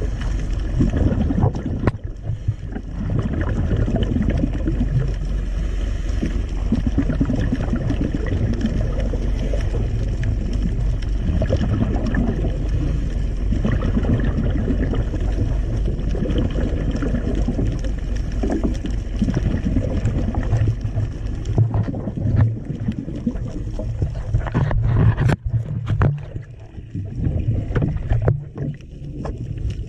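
Muffled underwater rumble heard through a camera's waterproof housing, with a boat engine's low steady hum that grows stronger over the last several seconds as the camera comes up under the outrigger boat. A few sharp clicks come about 25 seconds in.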